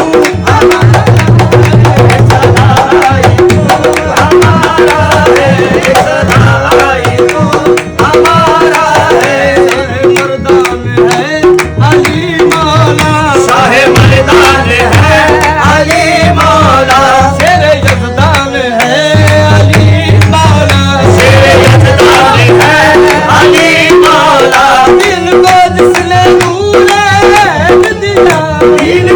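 Qawwali music played live: tabla keeping a fast, dense rhythm under a steady held drone and a wavering melody line.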